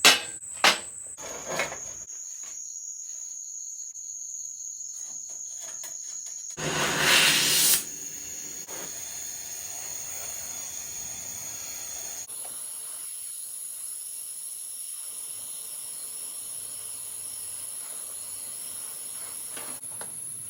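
Gas welding torch: a few sharp clicks, then a loud whoosh about seven seconds in, followed by a steady hiss with a thin high whine.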